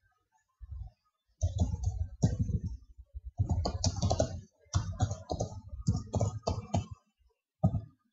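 Typing on a computer keyboard: runs of keystrokes with short pauses between them, beginning about a second and a half in.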